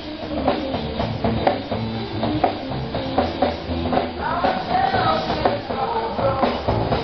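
Rock music: a drum kit keeps a steady beat of about two strikes a second with guitar, and a held melody line comes in about four seconds in.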